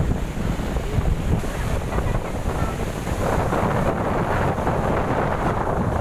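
Strong wind buffeting the microphone over rough sea waves; about three seconds in, the rushing hiss of breaking surf swells louder.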